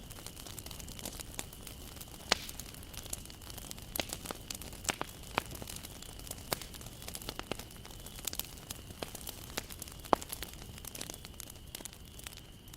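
Wood fire burning, with irregular sharp crackles and pops over a low steady hiss; two pops, about two seconds in and about ten seconds in, stand out as the loudest.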